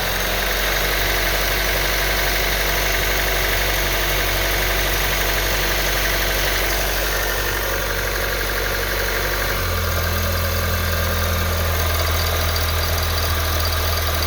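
Honda Civic 1.8-litre four-cylinder engine idling in reverse with the car standing still, with a rattle and vibration that the owner thinks could come from a worn serpentine belt. The low engine note changes about two-thirds of the way through.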